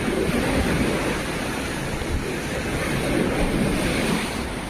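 Sea of Azov waves washing in, the surf swelling twice, with some wind on the microphone.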